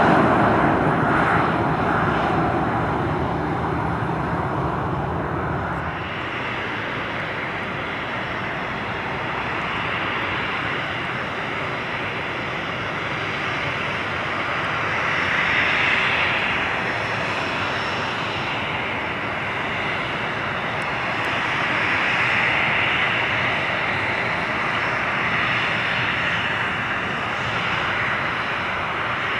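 Boeing 737-400's CFM56 turbofan engines running at low power as the jet taxis, a steady jet noise with a high whine. It is loudest at first, drops about six seconds in, then swells gently twice.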